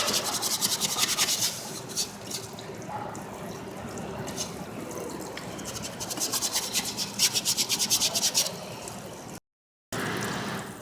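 A stiff brush scrubbing a greasy diesel engine part in quick back-and-forth strokes, in two spells: one at the start and another from about six and a half seconds in, with quieter rubbing between.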